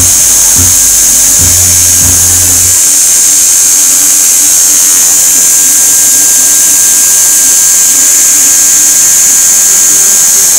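Tattoo machine buzzing in short runs with brief gaps, stopping for good about two and a half seconds in. A loud steady hiss runs throughout.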